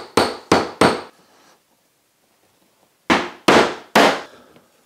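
A mallet striking a wooden rail to knock a glued domino joint together: three sharp knocks in quick succession, a short pause, then three more.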